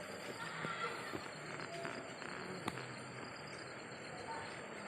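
Steady chorus of insects, high-pitched and unbroken, over a soft background hiss, with one sharp click about two and a half seconds in.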